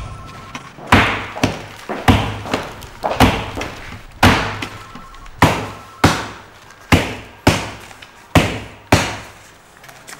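A rubber stamp striking papers on a wooden desk, over and over: about a dozen sharp thuds at an uneven pace, each with a short ringing tail.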